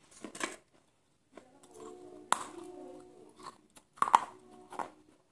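Close-miked eating: a person biting and chewing crunchy fried food, with sharp crisp crunches, the loudest about two seconds in and about four seconds in.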